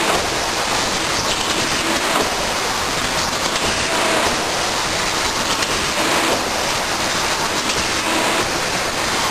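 Film-only shrink-wrapping machine running while it wraps packs of bottles: a steady hiss with faint, irregular ticks from its mechanism.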